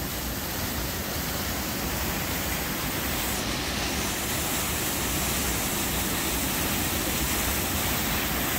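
Waterfall pouring steadily into a pool: a constant, even rush of falling water.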